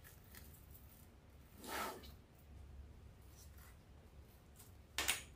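Faint handling noise from craft work: a brief scratchy rustle about two seconds in and a sharper, shorter one near the end, over a low steady hum.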